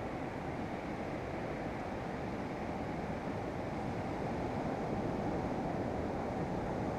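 Steady wind noise on the microphone mixed with surf on a sandy beach, a low rushing that grows a little louder about five seconds in.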